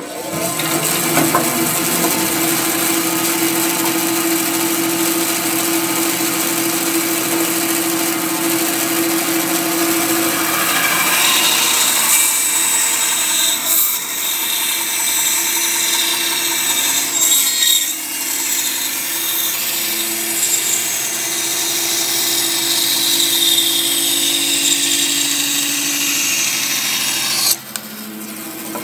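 Bandsaw running steadily and ripping a thin strip off a block of wood, the cutting noise laid over a constant motor hum. The cutting sound drops away about a second before the end.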